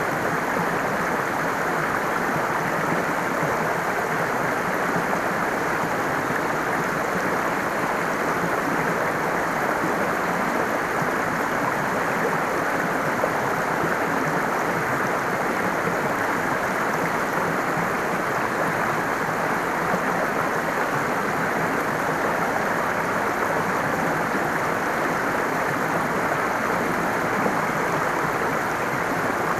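Running water of a stream, a steady, even rush with no changes.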